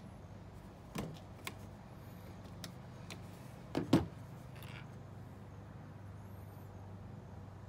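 Plastic parts of an animatronic dog-house prop being handled during assembly: a sharp click about a second in, a few light ticks, and a louder double knock near the middle, over a steady low hum.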